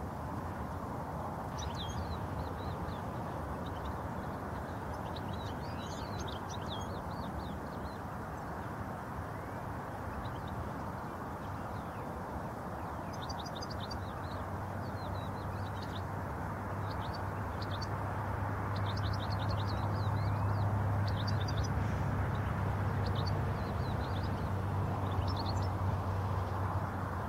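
European goldfinches chirping and twittering in short, scattered runs of high notes, over a steady low rumble that swells for a while past the middle.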